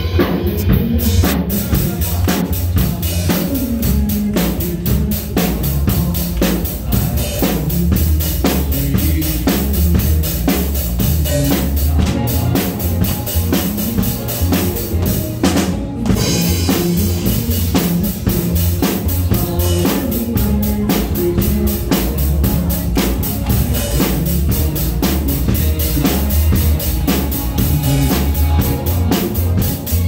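A child playing a TAMA drum kit in a steady rock beat, with bass drum, snare and cymbals, along with backing music that carries the tune.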